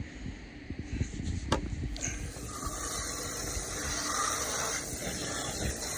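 Water running and spraying steadily, starting about two seconds in, as the dirt is rinsed out of a pool robot's filter.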